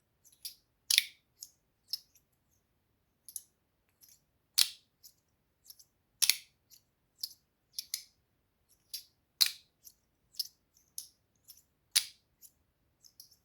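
Stainless steel fidget slider worked back and forth by hand, its plates clicking sharply at irregular intervals, with a few louder clacks among lighter ticks.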